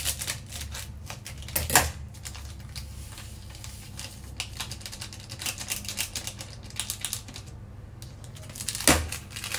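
Seasoning sachets being snipped open with scissors, then squeezed and shaken out: a run of small clicks and crinkles, with sharper snaps at the start, about two seconds in and near the end. A low steady hum runs underneath.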